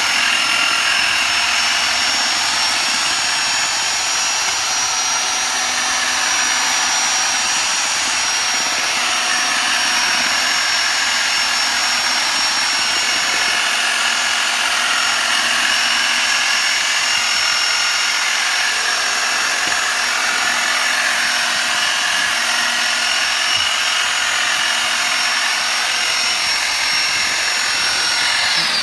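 Handheld electric paddle mixer running steadily with a high motor whine, its PVC-pipe shaft churning foam into cement slurry to make aircrete. Right at the end the motor is switched off and the whine slides down.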